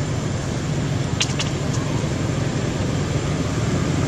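A steady low engine hum, with two short sharp clicks a little over a second in.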